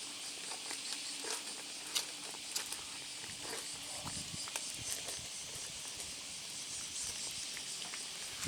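Outdoor cats eating dry food: scattered small crunches and clicks over a steady high hiss of outdoor background.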